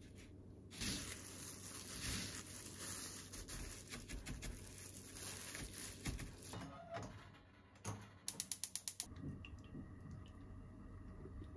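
Plastic-gloved hand and tongs pressing white fish fillets into panko breadcrumbs: a rustling, crackling handling sound. Near the end comes a quick even run of about eight clicks, under a second long, typical of a gas stove's igniter sparking.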